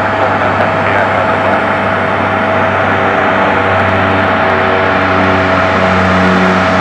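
Cessna 208 Caravan's single PT6A turboprop engine and propeller at takeoff power as the plane rolls and lifts off: a steady high whine over a low propeller drone, the drone growing stronger near the end.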